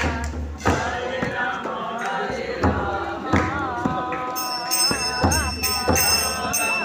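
Devotional group singing, chant-like, over sharp percussion beats. A high jingling, as of small bells or a tambourine, joins in a little past the middle.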